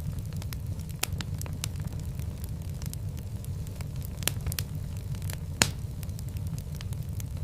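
Fireplace fire crackling: frequent sharp pops and snaps over a steady low rumble of flames, with the loudest pop about five and a half seconds in.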